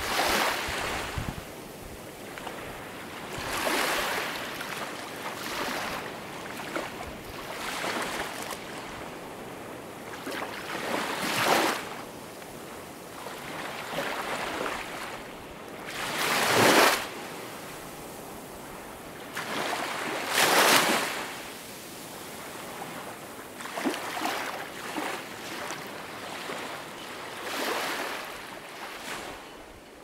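Small waves breaking and washing up a pebble beach, each wash rising and fading every few seconds. The loudest washes come about halfway through.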